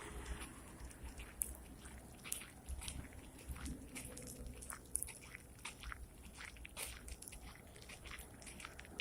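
Blizzard wind buffeting the microphone as an uneven low rumble, with many irregular small clicks and crackles over it.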